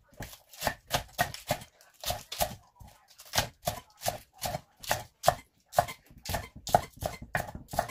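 A knife chopping on a cutting board in a quick, somewhat uneven run of sharp strokes, about three a second.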